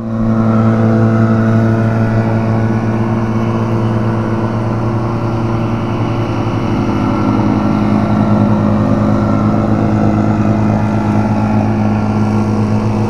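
Outboard motor on a long wooden river boat running steadily at an even pitch.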